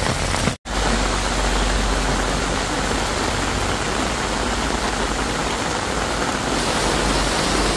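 Torrential downpour: a steady, dense hiss of heavy rain with a low rumble underneath, broken by a split-second dropout just after the start.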